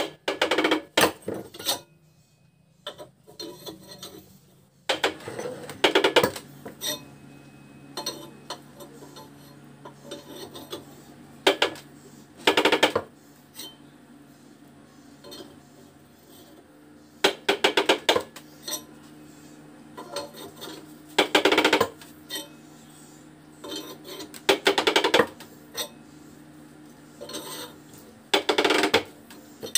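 Short bursts of rapid metal-on-metal tapping: a metal bar striking the screw-press puller that is freeing an e-rickshaw motor's shaft from its magnet rotor. The bursts come about every four to six seconds, over a faint steady low hum.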